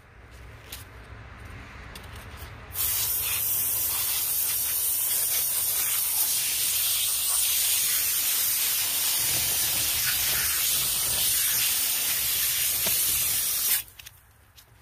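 Water spraying in a hard jet onto a steel bar and gravel, rinsing vinegar and loosened mill scale off the metal. It starts about three seconds in, holds steady, and cuts off sharply near the end.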